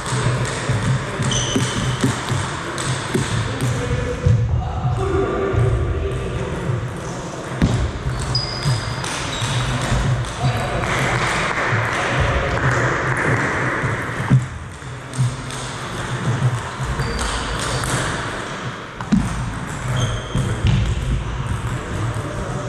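Table tennis ball clicking off the bats and bouncing on the table in rallies, with voices in a reverberant sports hall behind.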